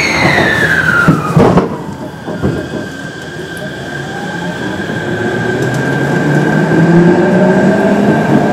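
Kintetsu 7000 series electric train's Mitsubishi IGBT-VVVF inverter and traction motors pulling away from a stop. A tone falling in pitch ends in a knock about a second and a half in, and a second knock follows. Then a steady high tone sounds with motor whine rising in pitch and growing louder as the train accelerates.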